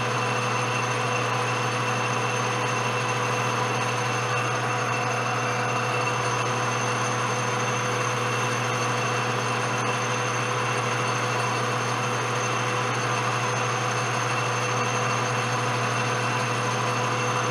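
Metal lathe running at a steady speed, its motor and gearing giving a constant low hum with a few steady higher whines, while a hand-ground high-speed steel tool takes a light cut on the spinning workpiece.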